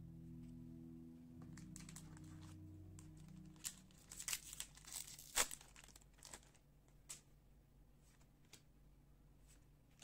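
Plastic trading-card booster pack wrapper crinkling and being torn open by hand: a cluster of crackling rips starting about three and a half seconds in, the loudest tear about halfway through.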